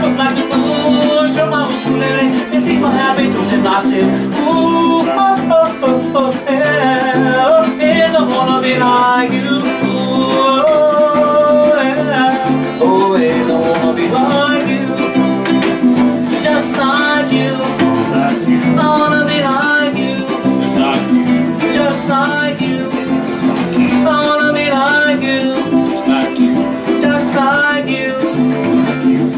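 Acoustic guitar strummed live, with a voice singing a melody over it.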